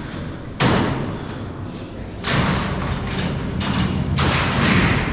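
A gang of heavy steel prison cell doors, worked together by a lever mechanism, sliding and slamming. There is a sharp bang about half a second in, then longer rattling clatters and bangs over the next few seconds.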